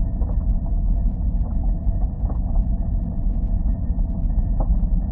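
Seismometer recording of the Matterhorn's ambient vibrations, sped up 80 times into the audible range: a continuous low rumble with a few faint steady tones and scattered faint clicks.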